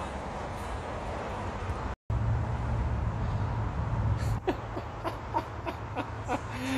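Outdoor background noise with a steady low hum, broken by a brief dropout about two seconds in. In the second half comes a quick string of short chirps, each sliding in pitch.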